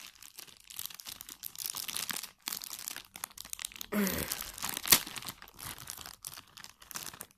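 Thin plastic Happy Meal toy packet crinkling and rustling in the hands as it is handled to be opened, with a sharp snap about five seconds in.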